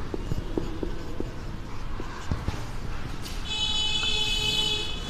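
Felt-tip marker writing on a whiteboard: light ticks and strokes as letters are written, then a steady high squeak lasting about a second and a half near the end as a line is drawn.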